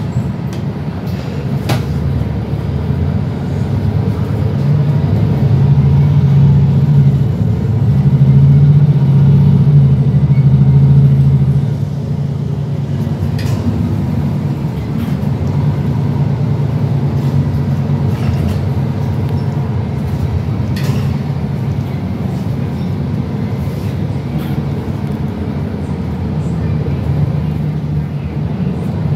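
MAN NL323F city bus engine heard from inside the passenger cabin as the bus moves off. The engine is heavier and louder from about five to eleven seconds in, drops suddenly at about twelve seconds as the bus eases off or changes gear, and then runs steadily, with small clicks and rattles from the cabin.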